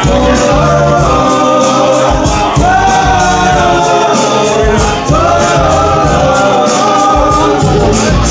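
Live band music with held, wordless sung vocal lines over a bass line and a steady drum beat.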